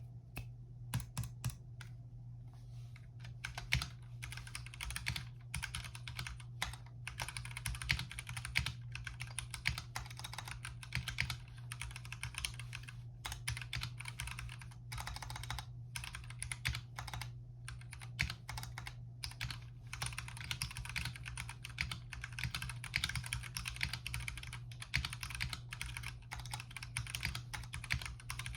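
Typing test on an RK61 Pro 60% mechanical keyboard with red switches: a few separate keystrokes at first, then fast, continuous typing. A steady low hum runs underneath.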